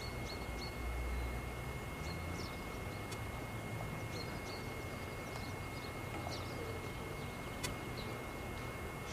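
Faint short bird chirps scattered over a steady low rumble, with a constant thin high-pitched tone and a single click near the end.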